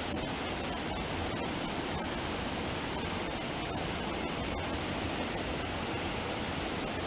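Stream water rushing steadily over a low weir and around boulders: a loud, constant rush.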